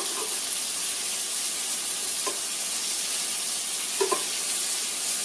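Marinated mushrooms and bell peppers sizzling steadily on the hot plate of a Hamilton Beach indoor electric grill, with a few light clicks of metal tongs: one near the start, one about two seconds in, and two close together about four seconds in.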